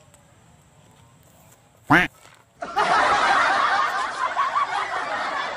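A short, sharp pitched sound about two seconds in, then a loud burst of many voices laughing together that starts suddenly under a second later and cuts off abruptly.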